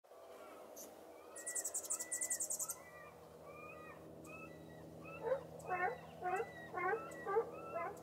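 Mixed wild animal and bird calls: short repeated pitched calls throughout, a fast high trill for about a second starting a second and a half in, then from about five seconds a louder run of rich calls roughly two a second, over a steady low hum.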